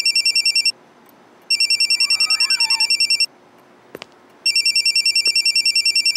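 Lava Iris X1 smartphone ringing for an incoming call: a high electronic trill of about ten pulses a second, in rings just under two seconds long with short pauses between them, three rings in all.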